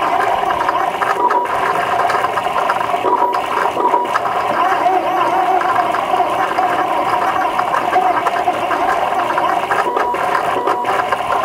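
Home-built Tantillus Plus 3D printer running a print: its stepper motors whine in quickly wavering tones as the print head moves in small circles, over a steady mechanical whir.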